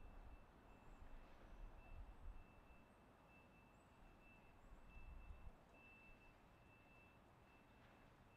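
Near silence: a faint low rumble that comes and goes, with a faint, broken high-pitched electronic tone.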